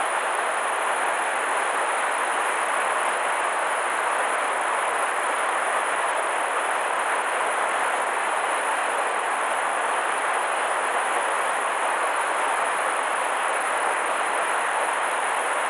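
Steady rushing of a river running high after a typhoon, an even hiss of flowing water with no breaks.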